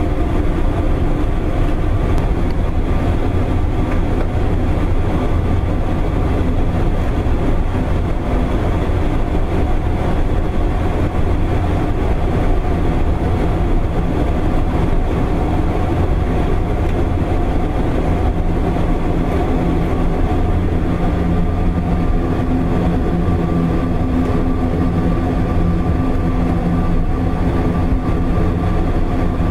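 Airbus A400M Atlas's four turboprop engines running at low power while taxiing, heard from inside the cockpit: a loud, steady drone with several held tones, a few of which grow a little stronger in the second half.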